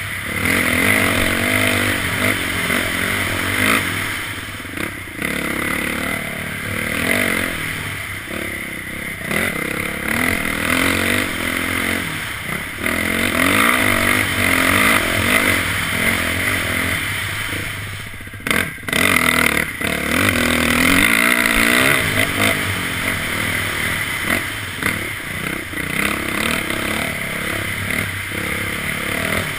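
Dirt bike engine running hard as the bike is ridden over a dirt trail, its pitch rising and falling with the throttle, heard from a helmet-mounted camera. The engine sound drops briefly about two-thirds of the way through.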